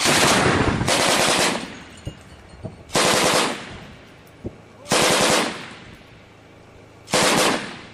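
Close, loud bursts of automatic weapon fire: five short bursts of rapid shots, the first two back to back, then one about every two seconds.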